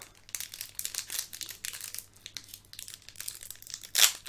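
Foil Pokémon booster pack wrapper crinkling in the hands as it is torn open, a run of small crackles with one louder crackle about four seconds in.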